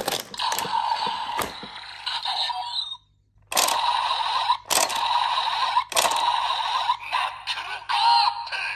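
Kamen Rider Revice DX roller stamp toy playing electronic sound effects through its small speaker, with a few sharp clicks among them; the sound cuts out briefly about three seconds in, then starts again.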